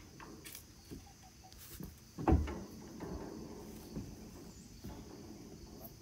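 Insects chirring in a steady high chorus, with a single knock about two seconds in and a few lighter taps.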